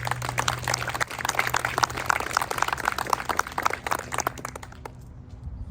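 An audience applauding, with the clapping fading away about five seconds in.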